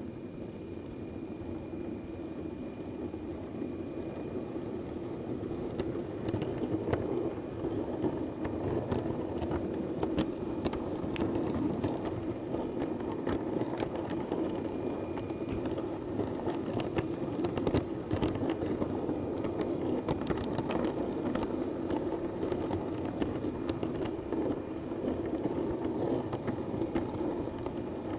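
Model diesel multiple unit running along the track: a steady drone that grows louder over the first few seconds, with scattered clicks from about six seconds in as the wheels cross the pointwork.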